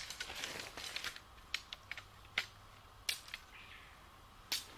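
Tent pole and tent fabric being handled while pitching a tent on gravel: scattered sharp clicks and knocks, with some rustling in the first second.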